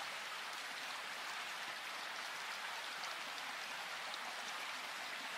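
A steady, even hiss with faint scattered ticks.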